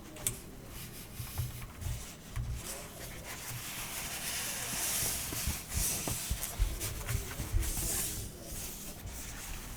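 Rustling and rubbing from the keyboard and its packaging being handled, swelling twice, with a few scattered light clicks.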